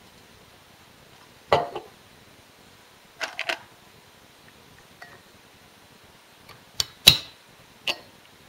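Aerosol duster cans being set down on a workbench and a plastic retainer cap being handled: a few separate sharp knocks and clicks, with a quick cluster about three seconds in and the loudest knock about seven seconds in.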